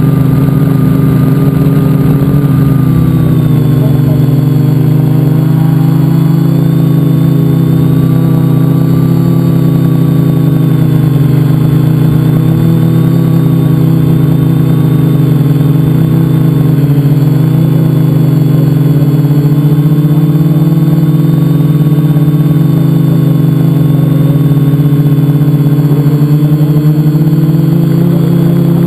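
Multicopter's electric motors and propellers droning loudly and steadily, recorded on board the craft, with the pitch wavering slightly as it flies.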